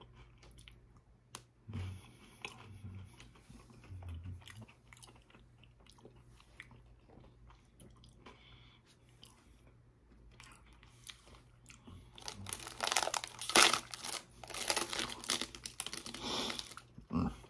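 Close-up chewing and crunching of a chocolate-coated Pocky biscuit stick, soft and sparse at first. From about twelve seconds in come louder crackling bursts as the foil inner packet is handled.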